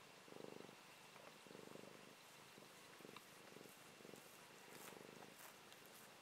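Sleeping cat snoring softly: a low, rasping snore on each breath, about once a second.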